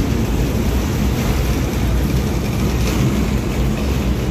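Loud, steady low rumble of city street noise and passing traffic, picked up by a handheld phone microphone.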